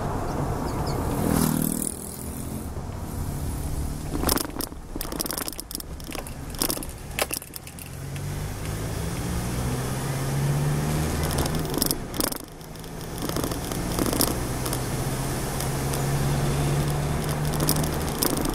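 Car engine and tyre noise heard from inside the cabin while driving, a steady low drone that is strongest in the second half. Scattered sharp clicks and knocks sound over it throughout.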